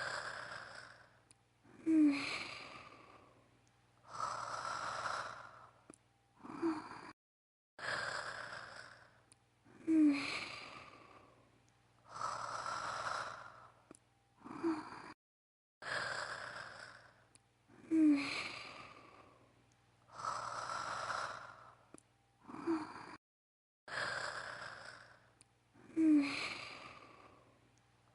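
A woman's acted, anime-style snoring: a short snort with a brief nasal tone, then long breathy exhales and sighs. The same cycle repeats identically about every eight seconds, an extended loop, with abrupt dead silences between some breaths.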